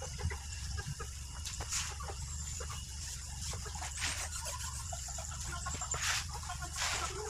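Chickens clucking, with a few short scrubbing sounds of a cloth being rubbed over an alloy wheel rim.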